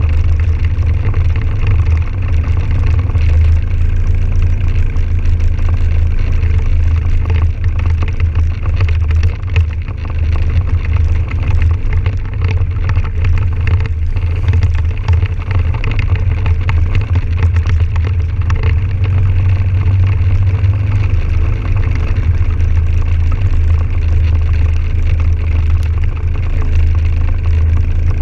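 Can-Am Outlander 1000 XT-P ATV's V-twin engine running steadily while riding, with a heavy low rumble underneath.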